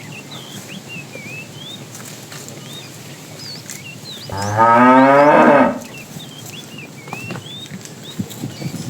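A cow mooing once: a single loud call about a second and a half long, rising in pitch at the start.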